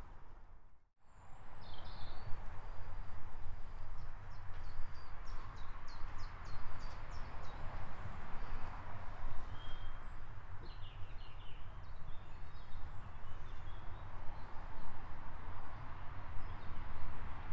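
Small birds chirping and twittering in short scattered bursts over a steady rush of wind on the microphone. The sound drops out briefly about a second in.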